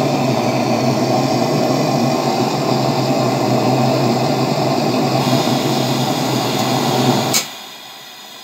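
Petromax Rapid pressure lantern's preheating burner burning with a loud, steady rush. About seven seconds in it is shut off with a click, leaving the softer hiss of the lit lantern.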